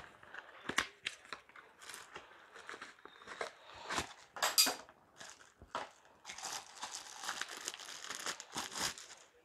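Plastic wrapping crinkling as a clear item in a plastic bag is pulled out of a cardboard box and handled: irregular crackles and rustles, busiest in the last few seconds.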